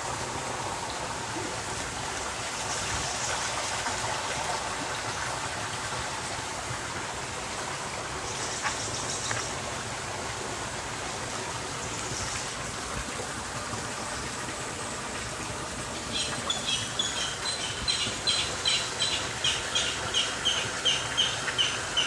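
Steady rush of a shallow spring-fed stream flowing over stones. From about sixteen seconds in, a series of high chirps repeats about two or three times a second over the water.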